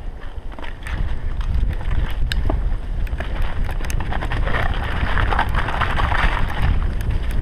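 Wind buffeting an action camera's microphone while a bicycle rides over a muddy forest track, with the rumble of the tyres and scattered short rattles and clicks from the bike. It gets louder about a second in.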